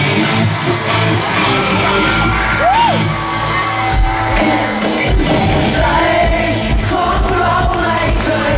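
Live pop music played loud through a concert sound system, with a heavy steady beat and a low bass coming in about four seconds in. A single high cry rises and falls briefly about three seconds in, and a man's voice sings into a microphone over the music from about halfway on.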